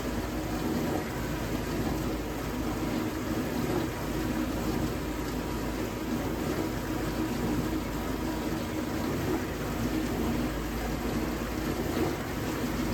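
Vintage dishwasher running a wash cycle: the pump motor's steady hum with water circulating in the tub. The owner thinks the pump sounds like it could be restricted, with water no longer hitting the tub at full force.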